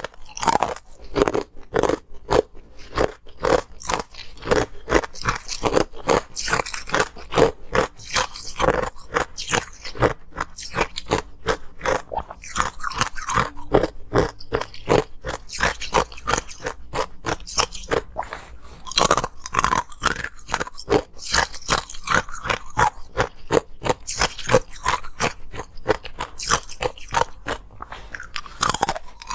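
Close-miked crunching of green-tinted ice chunks being bitten and chewed, with sharp cracks several times a second as the ice breaks between the teeth.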